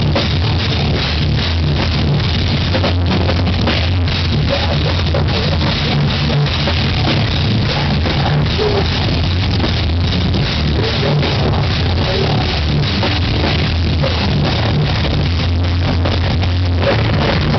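Live metalcore band playing loudly, heard from on stage: distorted guitars, heavy bass and fast, pounding drums.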